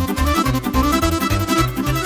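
Instrumental sârbă, a fast Romanian and Moldovan folk dance tune, played on electronic keyboard and accordion. A high running melody sits over a steady bass beat of about four pulses a second.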